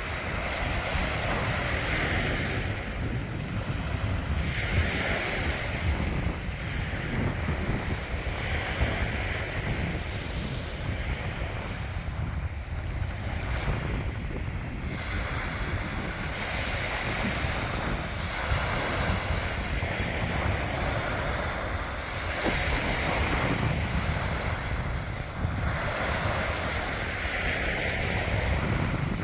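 Sea surf washing onto a beach, surging and falling every few seconds, with wind rumbling on the microphone.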